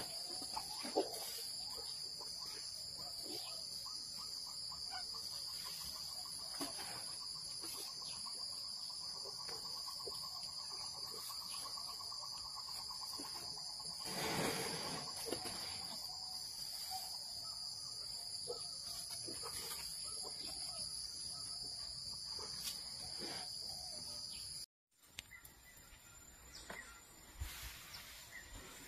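Steady high-pitched drone of insects, with scattered soft clicks and a brief louder whoosh about halfway through. The drone cuts off abruptly near the end, leaving quieter ambience with low rumbling.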